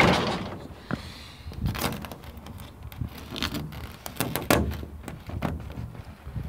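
Irregular knocks, clicks and rubbing from a hand pressing and pushing on a twin-wall polycarbonate greenhouse window panel to seat it in its frame.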